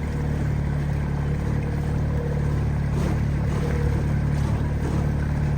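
A boat motor running steadily at cruising speed, with the hiss of the hull moving through water.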